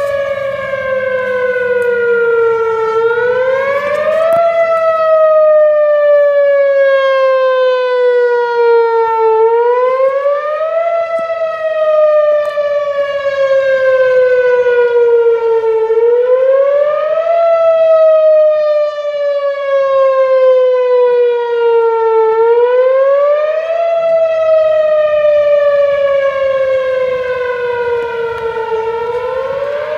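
Tornado warning siren wailing: one pitched tone that slides slowly down over about five seconds, then quickly back up, the cycle repeating about every six and a half seconds.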